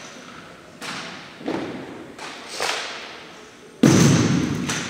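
Armed drill team's coordinated strikes on a gymnasium floor: about five sharp thuds roughly a second apart, each ringing out in the hall, with the loudest and deepest near the end.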